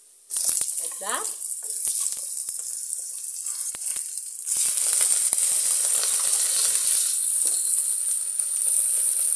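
Pieces of beef dropped into hot oil and onions in an aluminium pot, sizzling as they land. The sizzle starts suddenly and grows louder about four and a half seconds in as more meat goes in, with a few small knocks.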